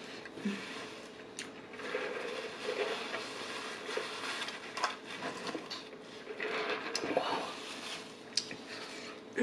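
Close-miked eating: chewing of saucy pasta, with a few sharp clicks of cutlery against a dish.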